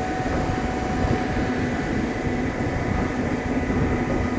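Large mobile boat hoist (travel lift) running: a constant engine drone with a thin steady whine over it.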